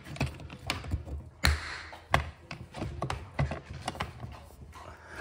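Irregular taps, clicks and knocks of a hand handling a hard plastic toolbox case and its switch panel, with a short scrape about a second and a half in, over a low steady hum.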